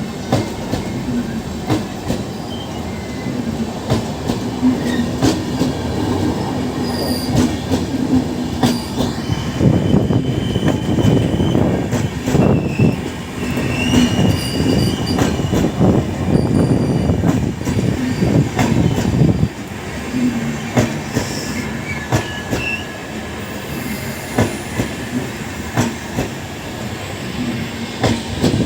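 Passenger express train rolling past, its wheels clicking over rail joints in a steady run of sharp clacks over a loud rumble. Thin, faint wheel squeal comes and goes, loudest around the middle.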